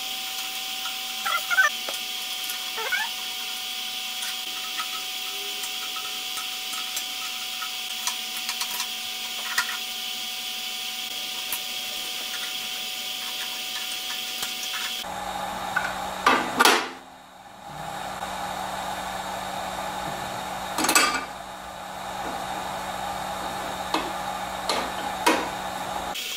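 Steady background hiss and hum with a few light clicks and knocks of metal table-saw parts being handled. The background changes abruptly about halfway through.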